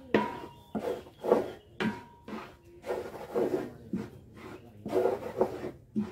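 A flat wooden paddle scraping and stirring garri (grated cassava) as it dry-fries in a wide pan, in a steady rhythm of about two scraping strokes a second.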